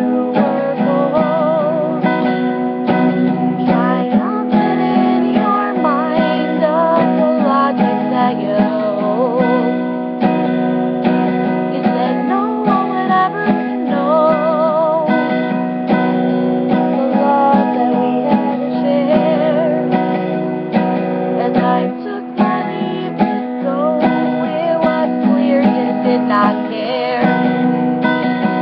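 A woman singing with her own strummed steel-string acoustic guitar, played with a capo. The strumming keeps an even chord pattern throughout, with the voice wavering over it.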